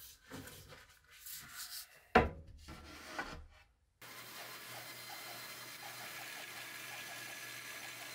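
Quarter-inch Baltic birch plywood boards slid and shuffled on a workbench, with one sharp wooden knock about two seconds in. Then, after about four seconds, a band saw runs steadily with a low hum as it cuts the plywood into a longboard deck's rough shape.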